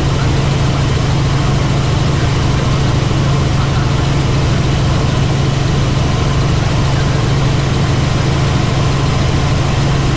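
Helicopter in flight: a loud, steady drone of engine and rotor with a strong low hum and a rushing noise over it.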